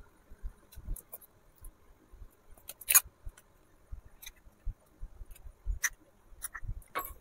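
An egg being cracked open with the thumbs and its shell pulled apart over a small clay bowl: a few faint, scattered cracks and clicks, the sharpest about three seconds in.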